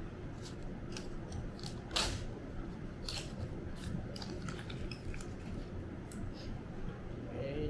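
Scattered light clicks and taps, the loudest about two seconds in, over a steady low room hum.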